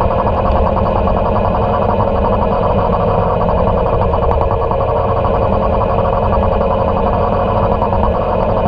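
Motorcycle engine running at a steady cruising speed, with wind and road noise, echoing off the walls of a road tunnel; loud and unchanging.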